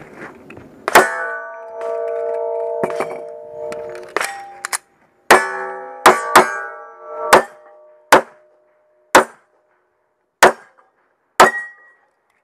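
Nine gunshots at steel plate targets spread over about ten seconds, with a long pause after the first. Hits leave the steel ringing with a clear metallic tone, longest after the first shot; the last few shots ring little.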